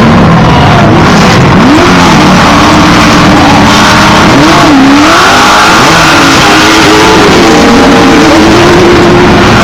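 Off-road racing trucks and buggies revving and accelerating hard, very loud, with several engines at once rising and falling in pitch as they shift and pass.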